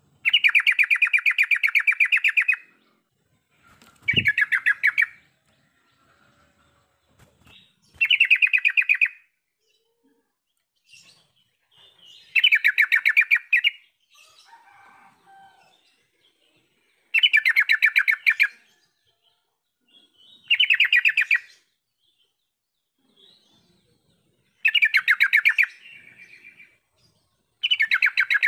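Yellow-vented bulbul singing: short phrases of rapid notes, each a second or two long, repeated about every four seconds.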